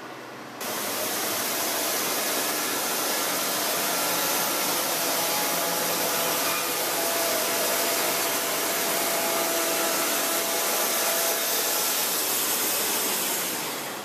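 Wood-Mizer LT70 band sawmill's blade cutting lengthwise through a log: a steady, hissing rush of sawing starts abruptly about half a second in and drops away near the end, over the hum of the sawmill's drive.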